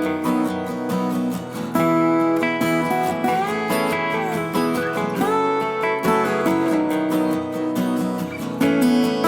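Background music: a strummed acoustic guitar playing a light, steady tune.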